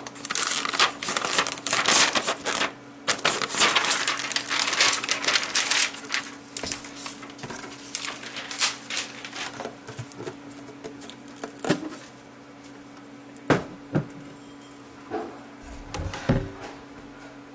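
Clear plastic cover and tape crinkling as they are peeled off a 3D printer, dense for about six seconds, then tapering off. This is followed by a few sparse, light plastic knocks and clicks as the build plate is handled.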